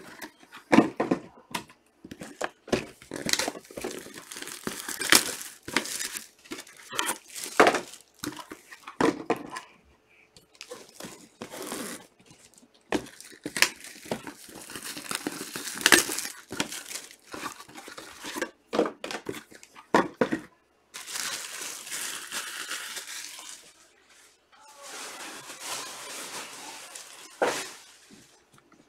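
Trading-card packs torn open by hand: plastic wrappers crinkling and ripping in quick, irregular crackles, with two longer, steady rustles about three-quarters of the way through.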